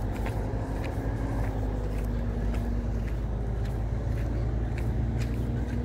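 A large vehicle's engine idling steadily: a constant low rumble with a faint steady hum.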